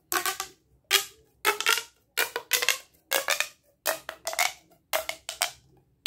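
Plastic pop tube being stretched and squeezed, its ribbed segments snapping in a series of sharp, ringing pops, about two a second. Really loud.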